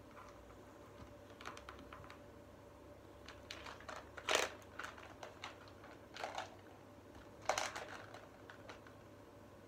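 Plastic beads clicking and knocking now and then as they are handled and threaded onto a cord, with two louder knocks about four and seven and a half seconds in.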